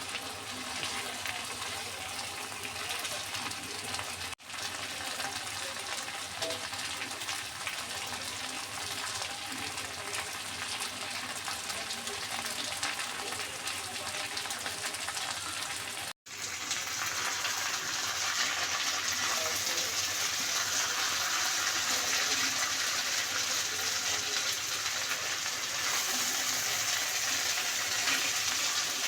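Sweet pumpkin pieces frying in hot oil, a steady sizzle that breaks off briefly twice and comes back louder after the second break.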